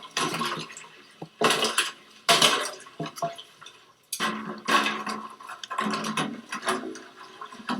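Bucket dunked and dragged through water and floating ice in a frozen septic tank, ice chunks clinking and water sloshing in three or four separate bursts.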